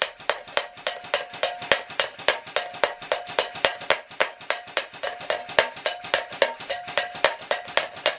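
HK416C airsoft replica firing a steady, rapid string of shots at a paper target, about four a second, each a sharp crack.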